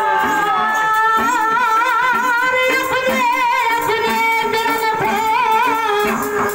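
Gote folk song: a man singing into a microphone through a PA loudspeaker, holding long notes with a strong vibrato over steady instrumental accompaniment.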